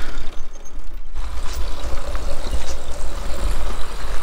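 Wind buffeting the microphone: a loud, fluttering low rumble with a hiss over it, starting about a second in.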